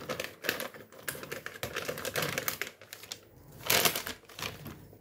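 A plastic flour bag crinkling and rustling in quick little clicks as it is handled and shaken out over a mixing bowl, with a louder rustle just before four seconds in.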